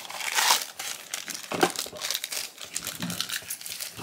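Packaging crinkling and rustling in a string of short bursts as a small cardboard blind box is opened and the foil pouch inside is pulled out and handled.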